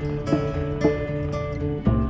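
Background music: acoustic guitar plucked in a steady rhythm, with notes struck about twice a second.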